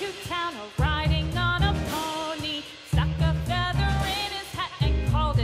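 Background music: a melody over drums and bass.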